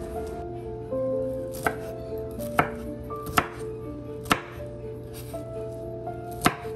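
Kitchen knife chopping broccoli florets against a bamboo cutting board: five sharp knocks, unevenly spaced about a second apart. Soft background music with held notes plays under it.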